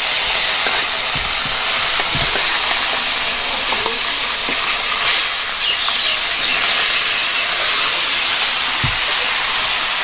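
Pieces of food sizzling in hot oil in a wok over a wood fire: a loud, steady frying hiss, with a few dull knocks as they are added and stirred with a metal spatula.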